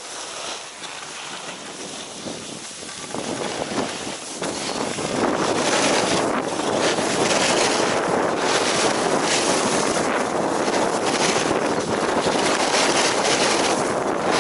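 Wind rushing over the microphone and skis hissing on packed snow as the skier gathers speed down the slope. The rush grows much louder about four to five seconds in, then holds steady with repeated short surges of hiss.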